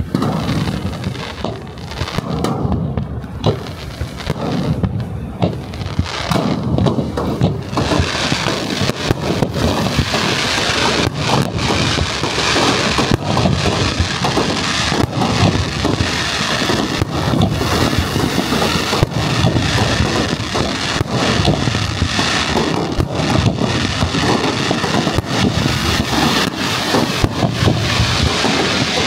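Fireworks display: aerial shells bursting in a rapid, overlapping series of bangs over a continuous rumble. The barrage thickens about eight seconds in and stays dense.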